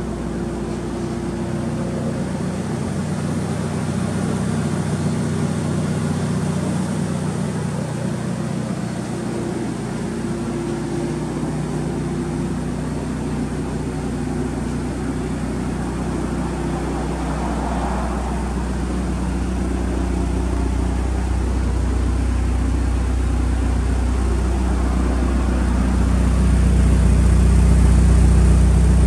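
Mitsubishi Lancer Evolution VIII's turbocharged 2.0-litre four-cylinder engine idling steadily. The exhaust note grows louder and deeper near the end, heard close to the tailpipe.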